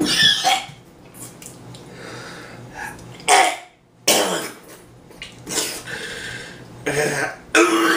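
A man coughing and spluttering with his mouth full of Nutella, in about seven short, harsh bursts, some voiced, with short pauses between them.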